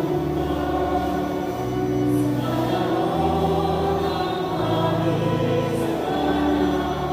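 Church choir singing, with long held chords that change every second or two.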